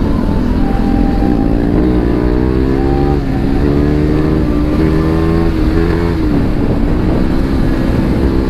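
Single-cylinder KTM motorcycle engine accelerating through the gears. Its pitch climbs and drops back at two upshifts, about three and six seconds in, over a steady rush of wind.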